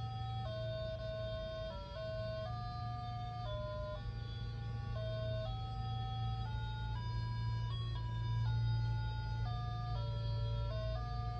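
A talking calculator's built-in alarm melody playing: a simple electronic tune of single held notes stepping up and down in pitch, over a steady low hum.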